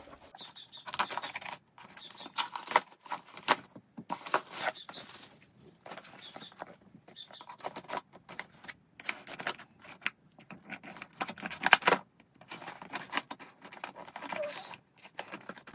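Scissors cutting through the packing tape on a cardboard parcel: an irregular run of sharp snips, crackles and scrapes, with the cardboard rustling as the box is handled.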